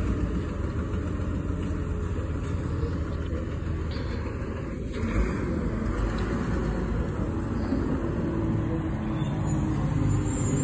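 Garbage truck's engine running as the truck pulls slowly away: a steady low rumble that swells slightly near the end.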